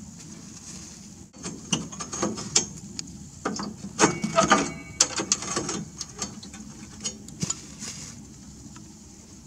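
Irregular metallic clicks and rattles as the old rusty exhaust pipe of a Poulan riding mower is worked loose and removed. The clicking starts about a second in, is busiest in the middle and thins out near the end.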